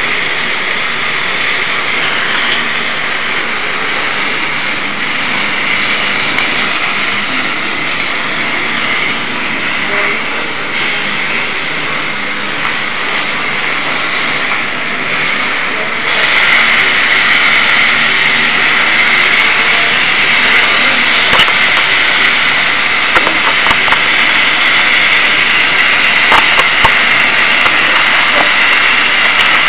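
Steady loud hiss from a Hero's steam engine being heated over a burner flame. About halfway through the hiss steps up louder and brighter, and a few light clicks sound near the end.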